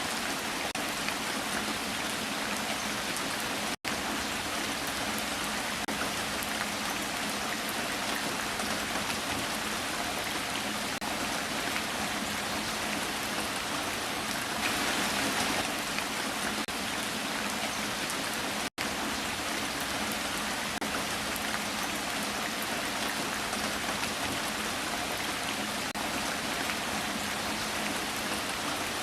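Steady rain falling on a surface, an even hiss of drops that cuts out for an instant twice and swells briefly about halfway through.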